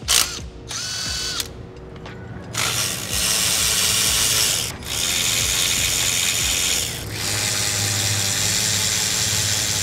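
Power ratchet spinning out the upper intake manifold bolts: a short burst about a second in, then three steady runs of about two seconds each with brief pauses between them.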